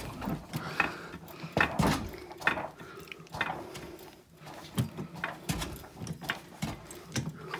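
Irregular light clinks and knocks of metal hand tools being handled while working under a car, coming every second or so.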